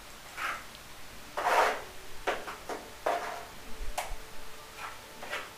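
Steel trowel scraping cement tile adhesive across a shower-tray wall in a series of short strokes, with a sharp tap of the trowel about four seconds in. The loudest stroke comes about one and a half seconds in.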